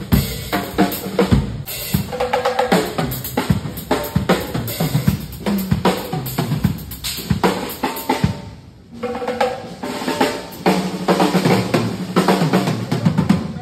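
Acoustic drum kit played in busy fills across the snare, toms and bass drum, with a brief let-up about nine seconds in.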